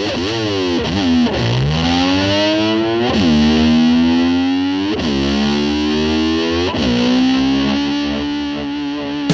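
Distorted electric slide guitar playing long notes that swoop down and glide back up about every two seconds, holding between the swoops, imitating a motorbike revving.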